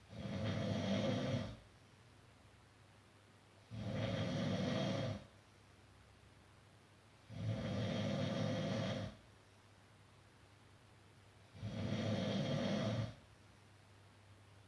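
A sleeping person snoring: four loud snores, one about every four seconds, each lasting about a second and a half.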